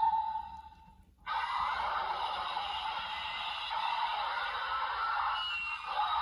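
Ultraman Decker toy sword's electronic sound effects from its small speaker. A rising tone fades out about a second in. After a brief gap, a dense, steady standby loop of layered tones starts suddenly. This is the sword's monster-dimension standby sound, which sounds oppressive.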